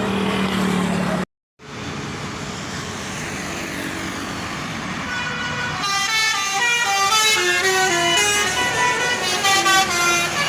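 A tour bus's basuri musical horn plays a quick tune of stepping notes over engine and road noise. The tune starts about halfway in, after a brief dropout in the sound.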